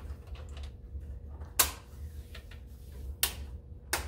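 West oven controller's rear mounting bracket being pushed down over the controller body and clicking into place. There are three sharp clicks, one about one and a half seconds in and two near the end, with fainter ticks between them, over a steady low hum.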